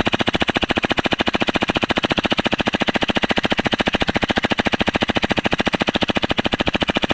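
Airsoft gun firing a long full-auto burst, an even, rapid stream of sharp shots at about 18 a second that runs for about seven seconds without a break.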